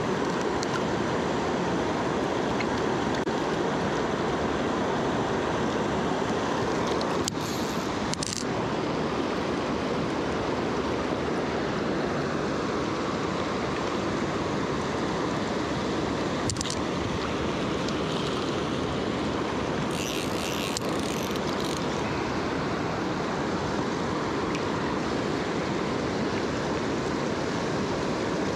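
Steady rush of fast river current running over rocks, with a few short clicks now and then.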